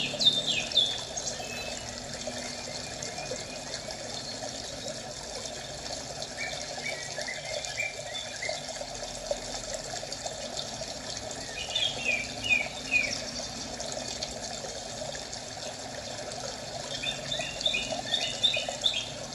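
Birds chirping in short bursts every few seconds over the steady sound of running water, like a nature ambience track.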